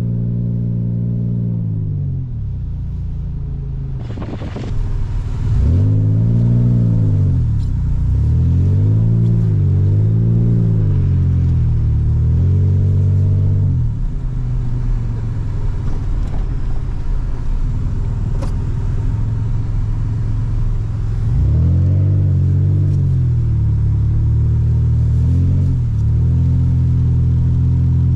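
Toyota Tacoma pickup engine revving up and down in repeated quick swells, as the throttle is worked to slide the truck on snow, over a steady hiss. The engine holds a steady note at first and again through the middle, with the swells coming in two bursts of several each.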